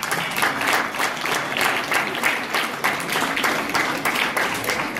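Audience applauding: many people clapping at once, a dense steady patter of claps.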